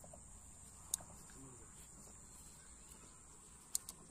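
Quiet riverbank ambience with a steady high-pitched insect drone, and two sharp clicks, one about a second in and one near the end.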